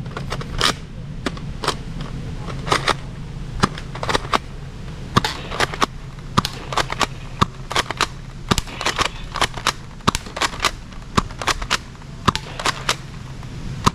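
Toy gun firing: an irregular run of sharp pops and clicks, two or three a second, over a steady low hum.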